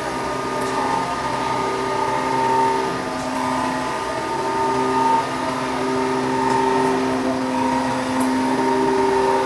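Cylinder-head surface grinder running, its rotating head cutting across the deck face of an Isuzu 4BD1 diesel cylinder head to resurface it. It makes a steady machine hum with several held tones that swell and fade as the cutter passes over the head.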